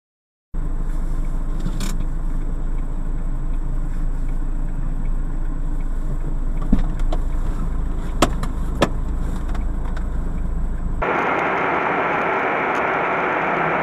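Dashcam audio from inside a moving car: a steady low engine and road rumble, with three sharp knocks in the middle. About three-quarters of the way through it cuts abruptly to a different recording with a steady hiss.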